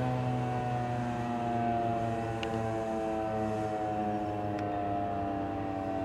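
Federal Signal 2001-130 rotating DC tornado siren winding down, its tone falling slowly and steadily in pitch.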